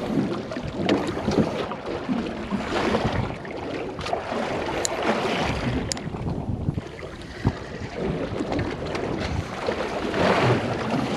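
Boat moving on the sea: wind buffeting the microphone and water washing against the hull, an uneven rushing noise with a few faint knocks.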